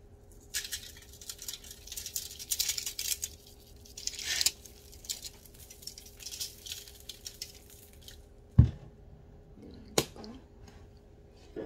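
Dry seasoning shaken out of a shaker container, the grains rattling and pattering onto okra on a foil-lined baking sheet in dense bursts for the first few seconds, then sparser. Later comes a single thump, then a sharp click, as containers are handled on the counter.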